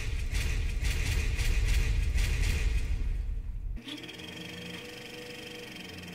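A loud, low rumbling noise with a fast flutter for about four seconds, which stops abruptly and gives way to held chords of trailer music.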